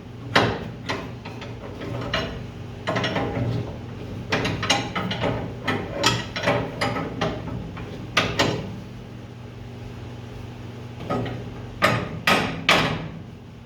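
Irregular knocks and clanks of hand tools on the steel coil spring compressor, in a long busy run, a pause of a couple of seconds, then a few more, over a steady low hum.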